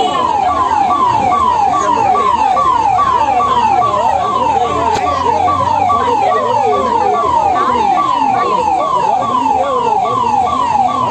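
Emergency vehicle siren sounding a rapid repeating pattern, each note falling in pitch, about three a second, with fainter wavering sounds underneath.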